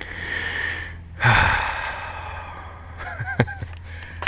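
A man breathing hard: two long breathy exhales, the second louder, then a short voiced grunt with a click a little past three seconds in, over a low steady hum.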